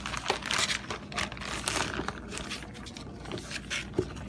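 Thin plastic crinkling and rustling in irregular bursts, from a disposable plastic glove and a plastic bag of chicken wings being handled, with a sharp tap about four seconds in.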